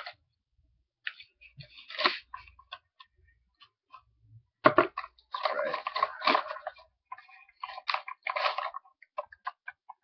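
Packaging being handled and unwrapped from an HDMI cable: irregular rustling and crinkling with scattered small clicks, busiest from about halfway in until near the end.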